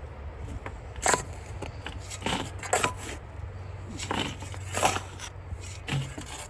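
Shovels scraping into and tossing sandy gravel and dirt, about six irregular crunching scoops, while backfill is hand-placed around a footing tube. A steady low engine hum runs underneath.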